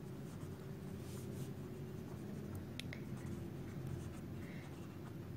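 Pen writing on paper: faint scratching strokes over a steady low hum.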